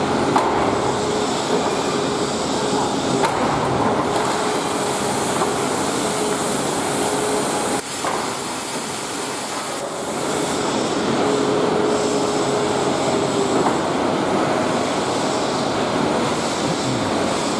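Excavator-mounted hydraulic breaker hammering, with the excavator's engine running under it. The sound briefly changes about eight seconds in.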